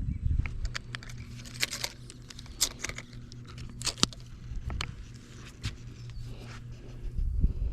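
Irregular clicks, knocks and rustles of hands working in a fishing boat, with a steady low hum underneath.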